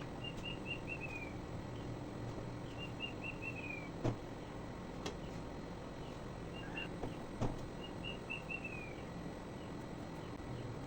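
A bird singing: a short run of four to six quick chirps falling in pitch, repeated three times a few seconds apart. A few sharp knocks, the loudest about two thirds of the way through.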